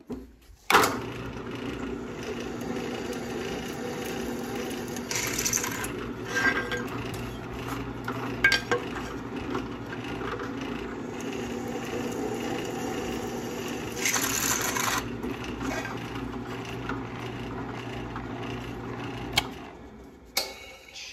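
Drill press switched on with a click about a second in, its motor running with a steady hum while a twist drill bit cuts a hole through a metal plate, with two louder stretches of cutting about five and fourteen seconds in. The motor is switched off near the end and spins down.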